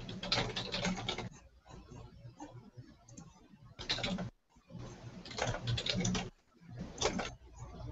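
Typing on a computer keyboard in several short bursts of quick keystrokes, with pauses between them.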